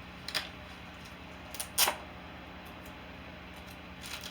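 Hands working at a makeup palette's packaging: a few sharp crackles or snaps, the loudest about two seconds in, while it is being pried or torn open with difficulty.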